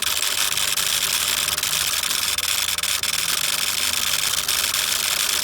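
Something in a car's fuse box chattering rapidly and without a break: a steady, fast, buzzing clatter that sounds like a printer at work.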